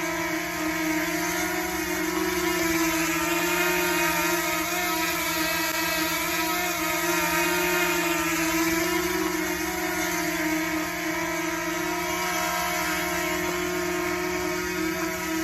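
DJI Mini drone flying, its motors and propellers giving a steady buzzing whine with a strong low hum and many overtones that waver slightly in pitch, a little louder for a few seconds near the start.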